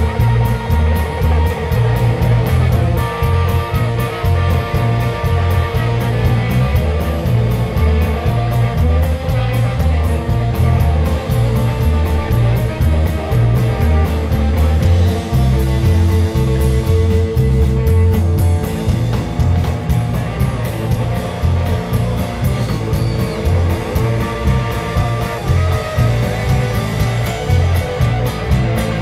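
Live rock band playing electric guitar, bass guitar and drum kit over a steady driving beat, with no singing.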